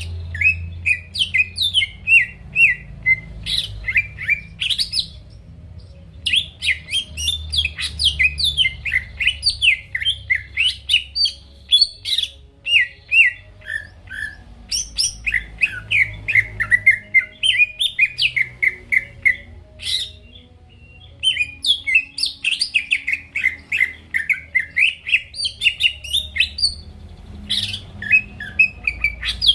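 Cucak ijo (green leafbird) singing in long, fast runs of chirps and whistles that rise and fall, breaking off briefly about five seconds in and again about twenty seconds in, over a faint low hum.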